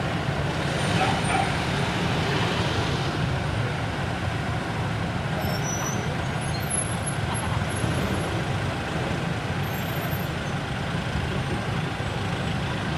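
A slow line of SUVs and pickup trucks driving past close by: steady engine and road rumble.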